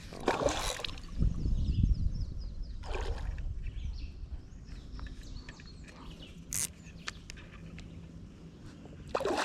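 Water splashing and trickling as a hooked bass is played in the creek, with a few short splashes in the first few seconds and scattered small clicks.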